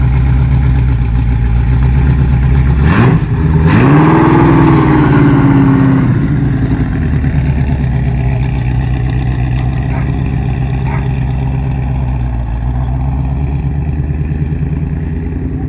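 Engine idling steadily, then revved once about three seconds in: the pitch rises sharply, holds briefly and falls away over the next few seconds before it settles back to idle.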